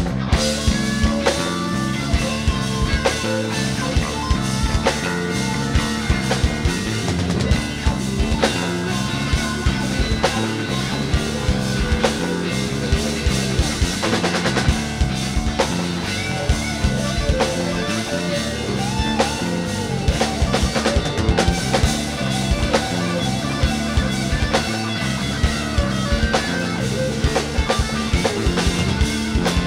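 Live rock band playing: drum kit, lead guitar and bass guitar.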